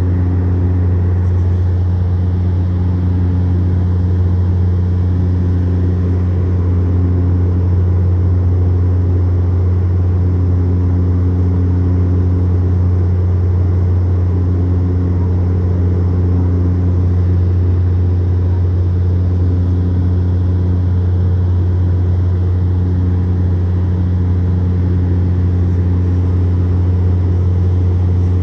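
Turboprop airliner's engines and propellers droning steadily, heard from inside the passenger cabin: a deep, even hum with a higher overtone that swells and fades every two to three seconds.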